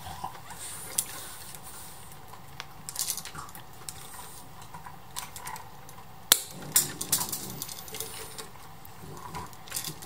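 Wire strippers and stiff electrical wire being handled, with small clicks and rustles, and one sharp snip a little past the middle as the over-long wire is clipped.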